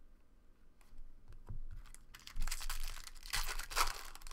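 Foil wrapper of a 2013 Bowman Chrome trading-card pack being torn open and crinkled, in two loud crackling bursts in the second half, after a few faint clicks.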